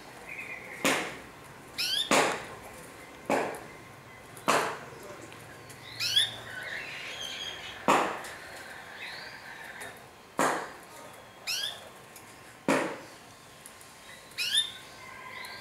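Outdoor background with birds chirping and a loud, sharp sound repeating irregularly every one to two seconds, some strokes joined by quick falling chirps.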